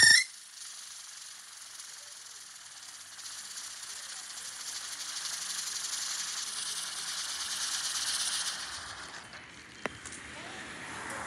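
Tire-shaped ground firework: its whistle ends in a sharp crack at the very start, then it burns with a steady high hiss that swells and fades out after about nine seconds. A single click follows near the end.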